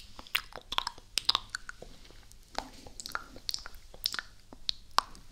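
ASMR mouth sounds made very close to the microphone: irregular wet clicks and smacks of lips and tongue, coming in quick clusters.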